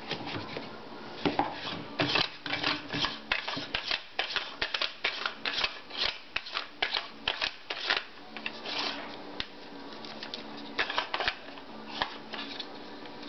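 Fore end (handguard) of a Just Right Carbine being fitted by hand over the barrel and onto the receiver: a quick run of small clicks and knocks as it is pushed and turned into place. They thin out about eight seconds in, with a few more near the end.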